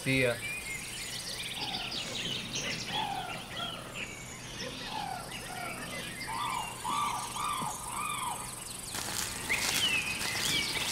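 Woodland birds singing, with many short chirping and whistled notes, and a high insect buzz that fades out about a second and a half in. From about nine seconds in, footsteps crunch through dry fallen leaves.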